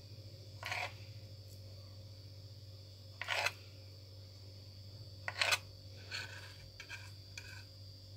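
Knife slicing through a banana onto a plastic cutting board: three separate cuts a couple of seconds apart, then a few lighter taps near the end, over a faint steady hum.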